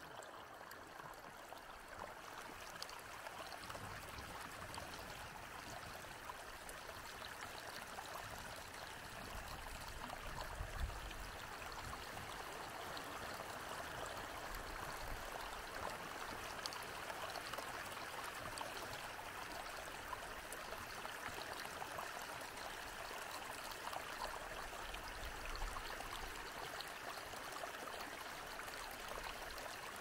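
Mountain stream flowing, a steady, even rush of running water.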